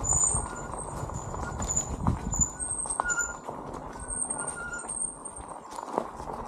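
Mobility scooter jolting and rattling along a rough dirt woodland trail, with irregular knocks and clatters as it rolls over bumps and roots. High thin chirps come and go over the rumble.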